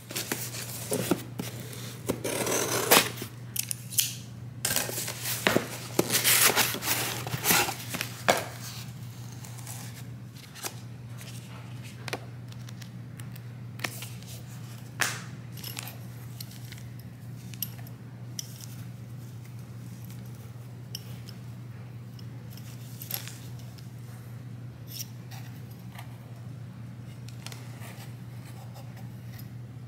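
Unboxing handling sounds: cardboard, paper and plastic packaging rustling and crinkling with light taps and clicks, busy for the first eight seconds or so, then only occasional clicks. A steady low hum runs underneath.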